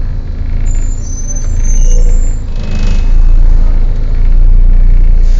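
Volvo B7TL double-decker bus's diesel engine running with a steady low rumble. A thin high whine sounds about a second in, and a short hiss of air about two and a half seconds in and again near the end.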